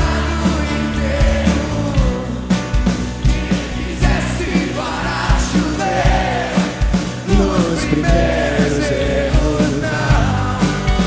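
Rock song playing, with a sung lead vocal over a band and a steady drum beat.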